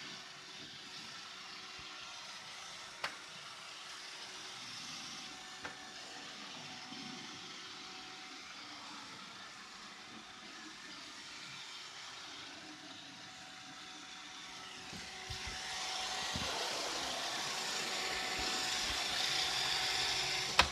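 iRobot Roomba robot vacuum running, a steady motor and brush hum that gets louder and brighter about fifteen seconds in. Two short clicks come early and a louder knock near the end.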